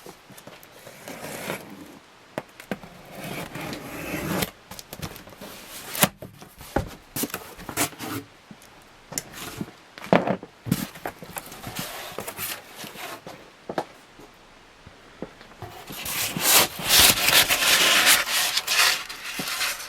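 Cardboard box and packing material being handled, rubbed and scraped during unpacking, with scattered knocks. The rustling and scraping grow louder and denser near the end.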